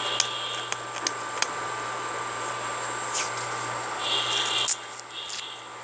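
Scotch tape being pulled off the roll and wrapped around a power cord: a few short rasping pulls and light clicks over a steady electrical hum.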